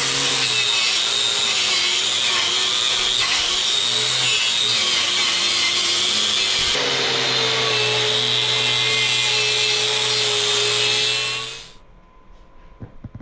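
Handheld angle grinder running steadily with a wire brush worked against the steel diamond-plate birdhouse, brushing it out. The motor shuts off and winds down about a second and a half before the end.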